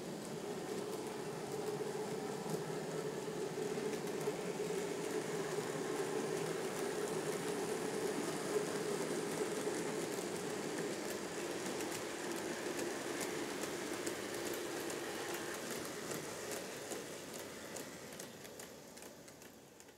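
N-gauge model train running on track, a TOMIX DE10 diesel locomotive model hauling container wagons: a steady motor hum and wheel rumble with light ticking from the wheels. It grows louder as the train passes close, then fades away near the end.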